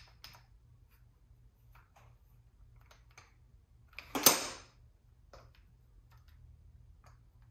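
Faint clicks and taps of hands and a small tool working at a motorcycle's handlebar and throttle, with one sharp metallic clatter about four seconds in.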